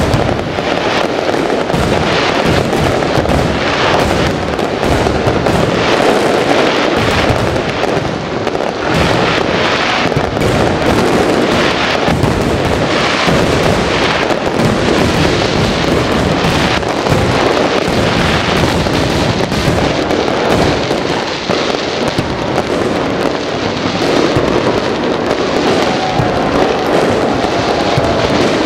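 A fireworks display going off in a dense, continuous barrage, the bursts overlapping without a pause.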